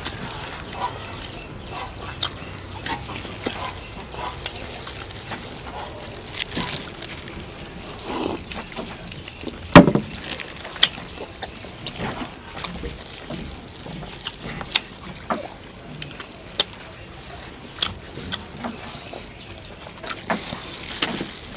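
Eating sounds at a table of roast duck: irregular clicks, smacks and knocks of chewing and handling the food, with one sharp knock about ten seconds in louder than the rest.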